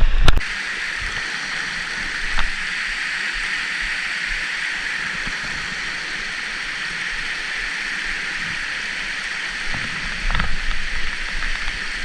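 Steady rush of water pouring over a small spillway, an even hiss with no rhythm. A light click comes about two seconds in, and a few brief knocks come near the end.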